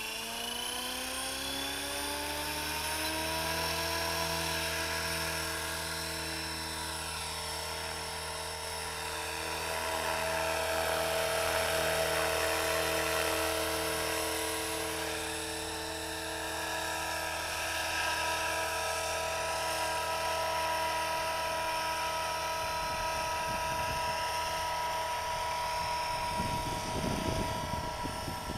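Radio-controlled model helicopter spooling up, its whine rising in pitch over the first few seconds, then running at a steady pitch as it lifts off and flies. There is a low rumbling in the last few seconds.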